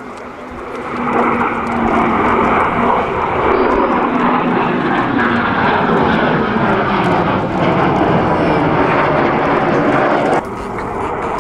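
Eurofighter Typhoon's twin EJ200 jet engines, loud jet noise that builds about a second in and holds, falling in pitch as the fighter passes. The noise drops suddenly near the end.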